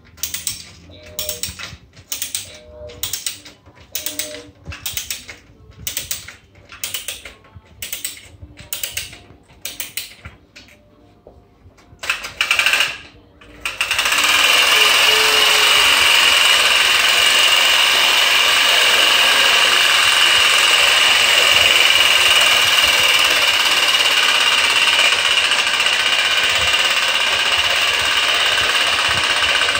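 Clockwork key of a Joustra tin-plate toy train being wound, in evenly spaced ratcheting strokes about one and a half a second. About fourteen seconds in the spring motor is released and runs with a much louder steady mechanical whir as the tin train rolls on its metal track.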